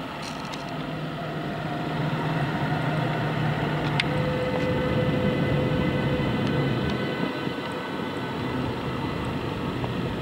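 DB class 101 electric locomotive hauling Intercity coaches as it rolls in along the platform: a steady rumble of wheels on rail with a few steady tones over it. The noise grows louder over the first two seconds, and there is one sharp click about four seconds in.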